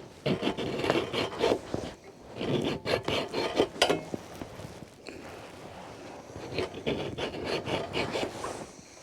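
Irregular scraping and rubbing against wood, coming in three clusters of rough strokes with a quieter stretch between the second and third.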